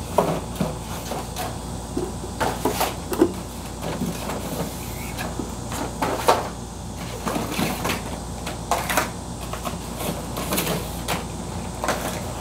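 Irregular clicks and clatter of plastic egg trays and eggs being handled and moved in and out of a wine refrigerator, over a steady low hum.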